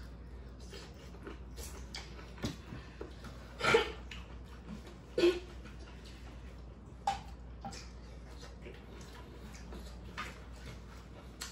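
Eating sounds at a table: chewing and mouth noises with scattered light clicks of plastic forks against foam takeout containers, and two louder short sounds about four and five seconds in.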